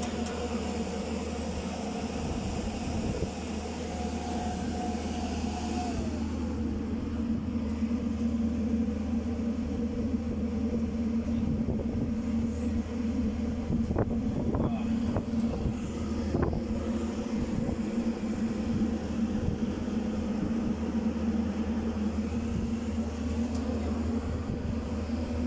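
Steady electrical hum and drone from a tower crane's control cabinet and running drive, with a whine that slides down in pitch about six seconds in and a few sharp clicks midway.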